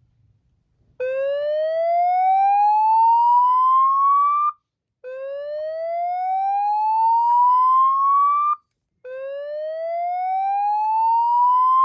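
Federal Signal 950I loudspeaker, driven by a Fire-Lite ACC-25/50 voice evacuation panel, sounding the slow-whoop fire evacuation tone. It plays three rising sweeps, each about three and a half seconds long, with short gaps between them, starting about a second in.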